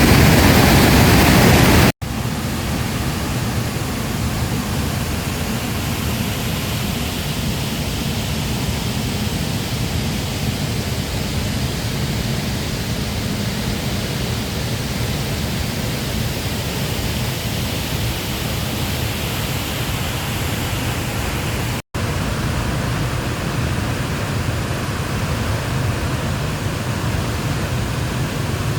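Waterfall and river water rushing in a steady, even roar. The sound cuts out twice for an instant, and it is a little louder and deeper before the first break.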